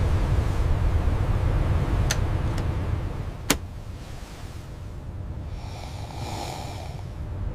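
Steady low rumble of a boat under way, with three sharp clicks around two to three and a half seconds in, the last the loudest, and a brief hiss near the end.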